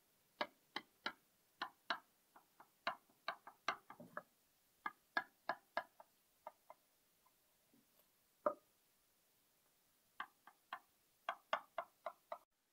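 Knife blade clicking against the glass bottom of a baking dish as it is pressed down through baked cornbread: quick, irregular runs of sharp ticks, a lull in the middle with one louder click, then a final flurry near the end.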